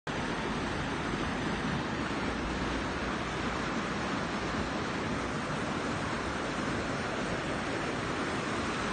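Steady rushing of river water, an even noise with no breaks.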